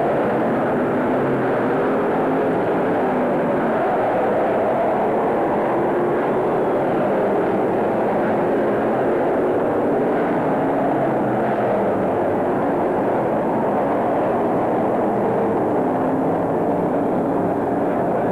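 A field of stock car engines running hard around the track: a loud, steady drone of many engines at once, with no single car standing out.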